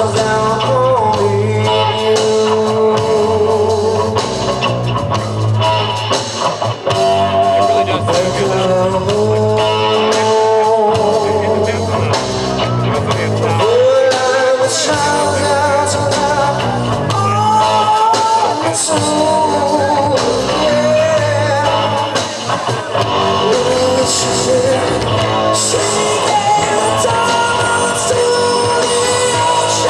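Rock band playing live: a lead singer's voice over electric guitars and drums.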